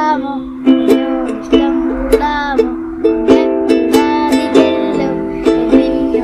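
Kadence soprano ukulele strummed, freshly tuned, with chords struck over and over in an uneven rhythm, each strum ringing and fading before the next.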